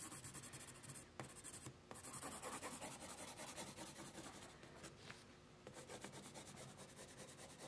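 Pencil shading on paper: faint, quick back-and-forth scratching strokes of the pencil lead, broken by a few short pauses.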